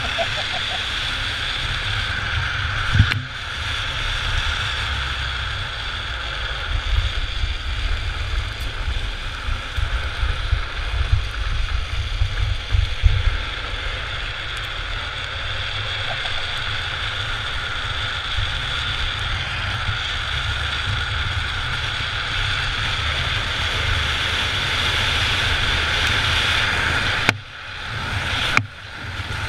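Wind buffeting a camera microphone on a moving drift trike, over a steady rolling hiss of the trike's wheels on asphalt. The sound drops out briefly twice near the end.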